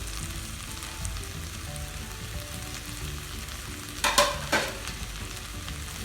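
Rice and green peas frying in ghee and oil in a pressure cooker pot, with a steady sizzle. A spoon stirs and scrapes the pot twice a little after four seconds in.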